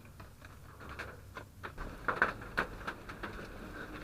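Water dripping from the rock, drops falling in irregular, separate taps. The dripping is slowing down.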